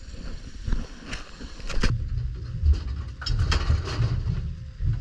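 Low, uneven rumble on a small fishing boat, heavier from about two seconds in, with a few sharp knocks.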